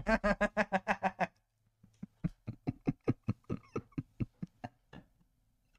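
A man laughing: a quick run of about ten short 'ha' pulses in the first second or so, then slower, fainter giggles that die away about five seconds in.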